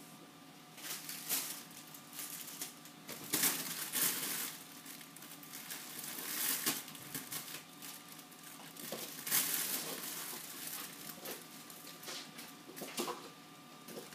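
Crinkly fabric cat play tunnel rustling and crinkling in irregular bursts as a kitten scrambles through it.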